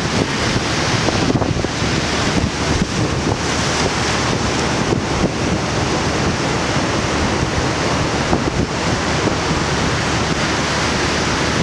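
Surf washing in over rocks and sand, mixed with steady wind buffeting the microphone.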